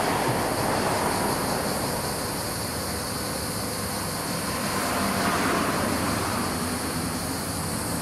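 Street traffic going by: a steady rumble of vehicles that swells briefly about five seconds in.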